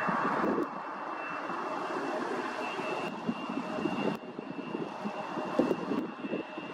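Jet engines of a KLM Cityhopper Embraer regional jet running as it moves along the airfield, with a steady high fan whine, mixed with gusts of wind buffeting the microphone.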